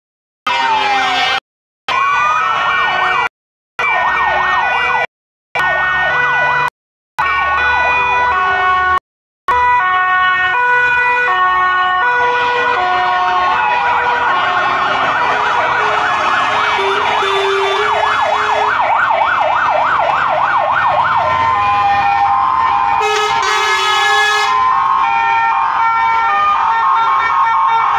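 Several fire engine sirens sounding together as a column of fire trucks passes, slow rising-and-falling wails overlapping, with a fast yelp from about halfway until near three quarters through. The sound cuts out briefly several times in the first nine seconds.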